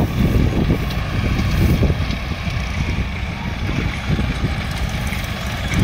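Diesel engines of an excavator and a farm tractor running, a steady low rumble, while soil is loaded into the tractor's trolley.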